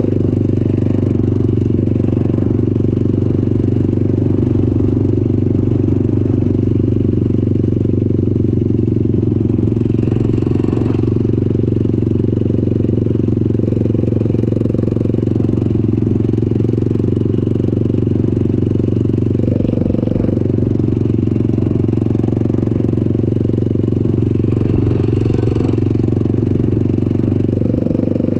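Off-road vehicle's engine running loud and steady at an unchanging pitch.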